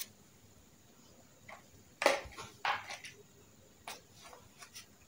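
A few short, sharp clicks and rustles of items being handled and packed into a suitcase, the loudest about two seconds in, with quiet room tone between.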